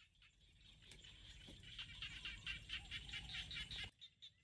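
Frogs calling, a rapid repeating chirp about five times a second that grows louder, over a low rumble, and cuts off suddenly near the end.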